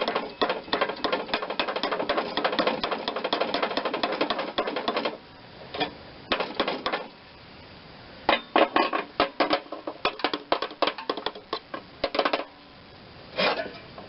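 Rapid metallic clicking and rattling from a tool working a stuck, keyed-on pulley loose from a mower-deck spindle. It runs continuously for about five seconds, then comes in short bursts with quiet pauses between.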